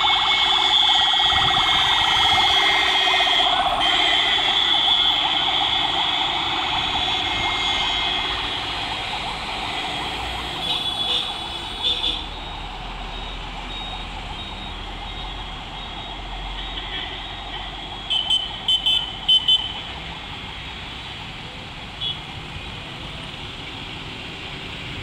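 Ambulance siren sounding loudly, then fading over several seconds into traffic noise. Vehicle horns give short honks, with a quick run of them past the middle and a single one near the end.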